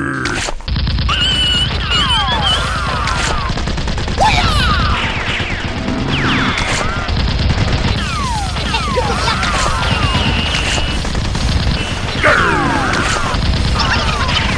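Sustained rapid automatic gunfire, a continuous volley of shots that starts about half a second in, with many short falling whines over it.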